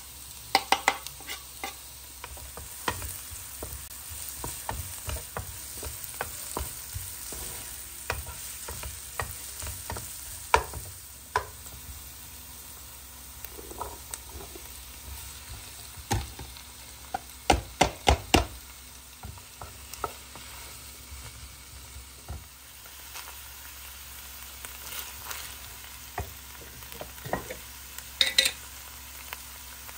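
Diced vegetables sizzling in a nonstick pan while a wooden spoon stirs and scrapes them, with scattered sharp knocks against the pan. A cluster of louder knocks comes about halfway through, and another near the end.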